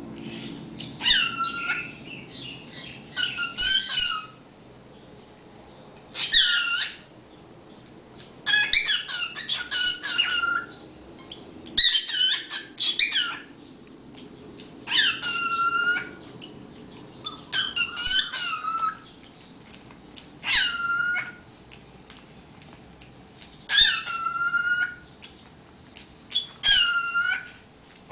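Pet cockatiel making short, high-pitched whistled calls, about a dozen of them, one every two to three seconds.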